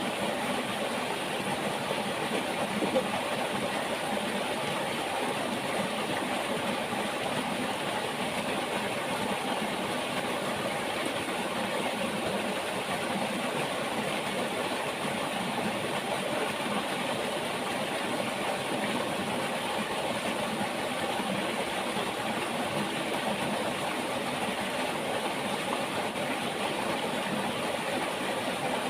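Steady rushing of a flowing river: an even, unbroken wash of water noise, with one brief louder tick about three seconds in.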